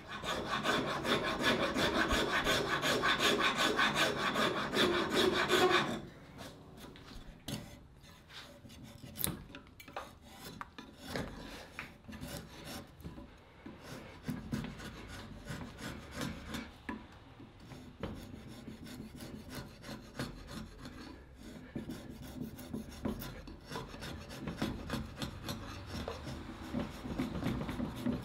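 Cabreuva wood being shaped by hand with an abrasive tool, rubbed in fast back-and-forth strokes. A loud run of strokes stops suddenly about six seconds in, followed by softer, scattered strokes.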